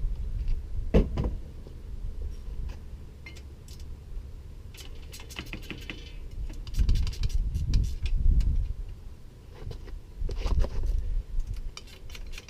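Light metallic clinks and clicks of bicycle parts and tools being handled while a bike is dismantled, with a sharp knock about a second in and dull handling thumps around the middle.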